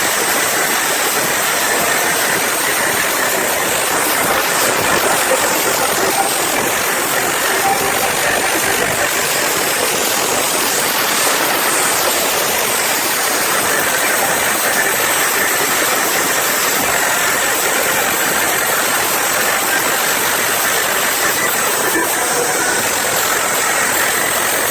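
Large concert crowd cheering, a loud, steady din of many voices.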